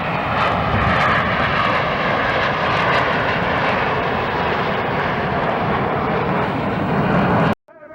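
Red Arrows BAE Hawk T1 jets with Rolls-Royce Turbomeca Adour turbofans flying the rollback manoeuvre: a loud, steady jet roar with tones that fall slowly as the aircraft pass. It cuts off suddenly near the end.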